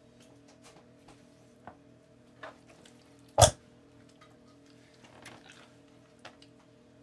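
Kitchen knife cutting into a raw whole chicken on a wooden cutting board: a few soft taps and one sharp knock of the blade against the board about three and a half seconds in.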